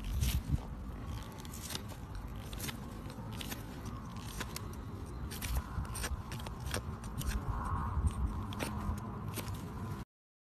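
Stiff bristles of a hoof pick brush scrubbing dirt off a horse's hoof sole, a scratchy brushing with irregular small clicks and crackles. The sound cuts off suddenly near the end.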